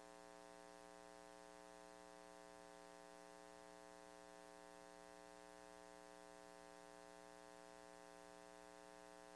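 Near silence: a faint, steady electrical hum with a buzz of evenly spaced overtones and a light hiss, unchanging throughout.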